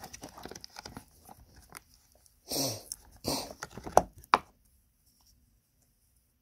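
Small clicks and crackles of a flexible silicone mould being bent and cured resin cabochons being pushed out of it by hand. Two louder short rushing noises come a little past halfway, followed by a couple of sharp clicks; the last two seconds are nearly silent.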